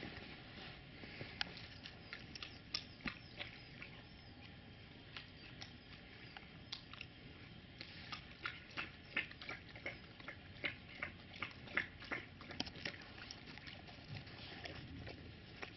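Tibetan mastiff puppy eating from a metal bowl: faint, irregular crunching chews and clicks, coming thicker and louder about halfway through.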